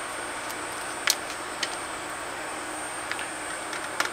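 A few small, sharp clicks and taps from handling the opened CD player's parts, over a steady background hiss with a thin high whine.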